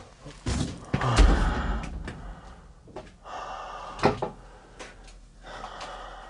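Knocks and thumps on a wooden door. The loudest is a heavy thump about a second in, and two sharper knocks follow about four seconds in.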